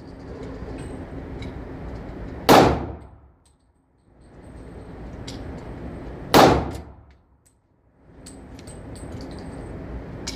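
.44-calibre gun fired twice, about four seconds apart, each shot a sharp crack with a short ringing tail, over a steady background hiss.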